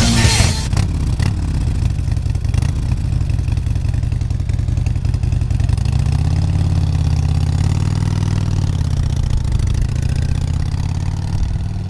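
Motorcycle engine running low and steady, then revved up and back down about halfway through. Heavy rock music cuts off in the first second.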